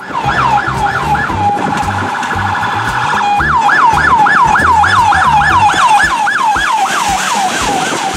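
Toy police car's electronic siren: a wail sweeping up and down over and over, about four times a second. Shortly after it starts it switches to a faster warble for a second or two, then goes back to the sweeping wail.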